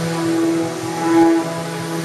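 Background music: slow, sustained chords with notes that swell and fade about once a second.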